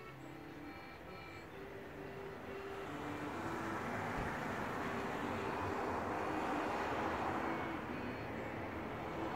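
Rushing noise of a passing vehicle that swells from about two seconds in and stays loud.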